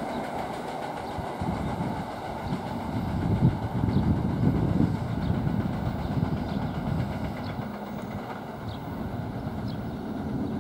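Commuter train running away down the track, the steady noise of its wheels on the rails fading into the distance.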